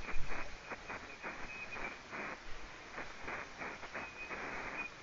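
Shortwave receiver audio on the 20-metre amateur band: hiss and crackling static in a narrow, telephone-like band, rising in irregular bursts several times a second.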